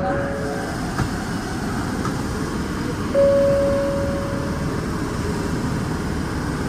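A single-pitch chime tone cuts in sharply and fades over about a second and a half, repeating roughly every four seconds: once about three seconds in, with the tail of the previous one at the start. Under it runs the steady hum of a subway train standing at a station platform.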